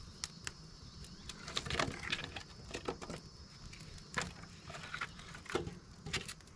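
Irregular light clicks and knocks, a few in quick clusters, over a steady low rush and a thin, steady high-pitched drone.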